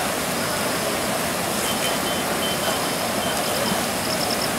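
Floodwater pouring over a reservoir's spillway in a steady, heavy rush.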